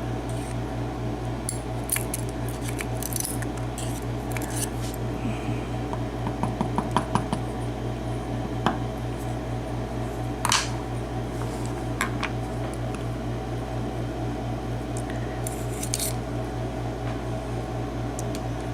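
Small metal lock pins and parts from a disassembled cylinder lock clicking and tapping as they are handled on a work surface, a few sharp clicks, with a quick run of light ticks about six seconds in. A steady low electrical hum lies under it.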